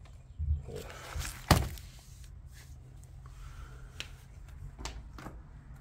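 A few scattered knocks and scuffs from someone moving about among debris, the loudest about a second and a half in, over a low rumble.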